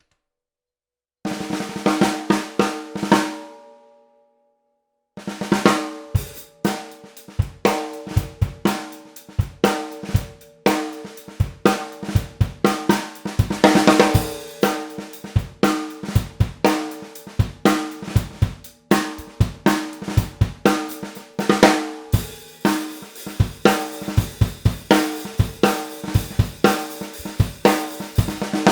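Pearl Ultracast 14 x 6.5 inch cast-aluminium snare drum struck with sticks, dry with no effects. About a second in, a few strokes ring out and fade. After a short pause comes a steady run of strokes and patterns, getting denser over the last several seconds.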